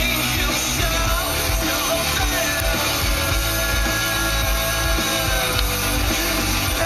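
Rock song with a singing voice playing from the car's FM radio, heard through the cabin speakers.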